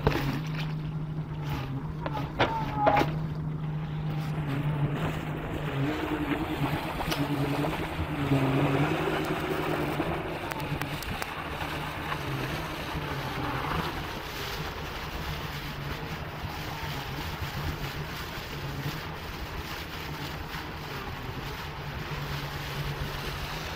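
Komatsu PC200 excavator's diesel engine running with a steady low drone as the machine sits sunk in broken ice and water, under a continuous rushing noise of wind and water. A couple of sharp knocks come about two to three seconds in.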